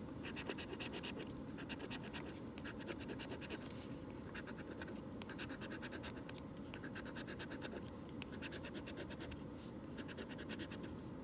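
A coin scraping the silver latex coating off a lottery scratch-off ticket in rapid, repeated back-and-forth strokes, uncovering the numbers underneath.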